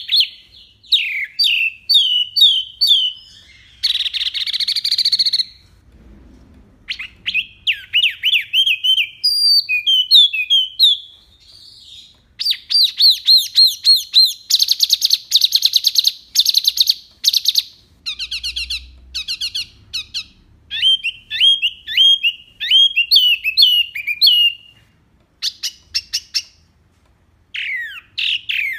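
Song of the bird Indonesian bird-keepers call the wambi mini: bursts of fast trills and rapidly repeated high whistled notes, the 'tembakan' (volley) style of song, broken by pauses of a second or two.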